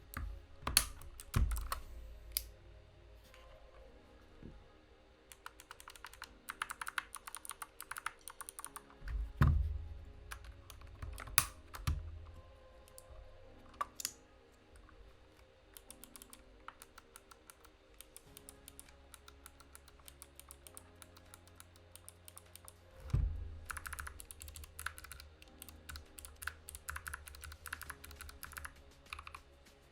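Typing on a mechanical keyboard fitted with Kailh Box White clicky switches: rapid, irregular runs of sharp clicks in bursts, with a few heavier low thumps, over background music.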